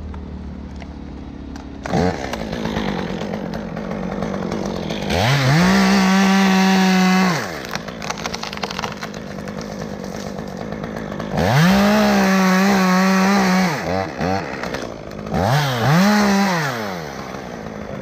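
Two-stroke chainsaw idling, then revved up to full speed twice for about two seconds each while cutting a sycamore limb, with two short throttle blips near the end.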